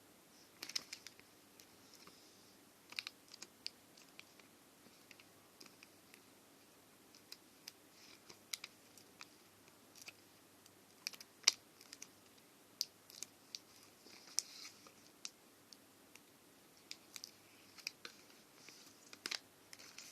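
Faint, irregular light clicks and taps with occasional soft rustling, as from handling a new smartphone and its packaging. The single loudest tap comes about eleven and a half seconds in.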